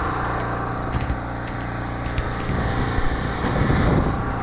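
An engine running steadily with an even low hum, with a few faint light knocks over it.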